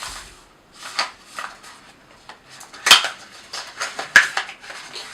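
Lamp parts and packaging handled on a hard surface: a run of rustles and small clinks, with two sharp clicks about three and four seconds in.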